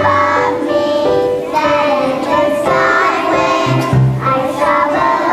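A group of young children singing a song together in unison over a musical accompaniment that carries low bass notes.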